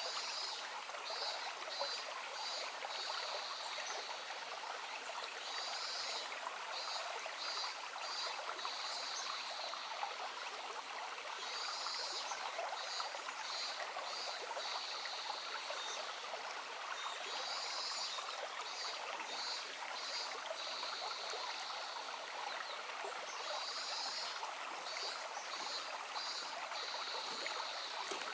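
A stream flowing, a steady rushing murmur of water. An animal's high pulsed chirping call comes in short bursts about every six seconds.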